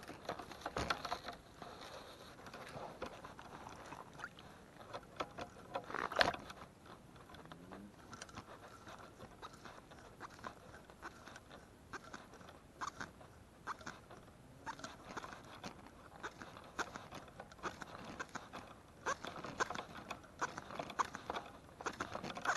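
Fly line being stripped in by hand off a fly rod: a quiet run of short rasps, scrapes and clicks at an uneven pace, with a louder knock about six seconds in.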